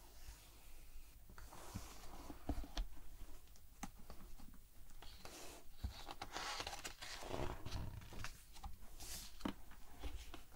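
Fingers tapping and sliding on the glossy pages of a hardcover picture book with light, scattered clicks, then a page turned with a papery rustle a little past halfway.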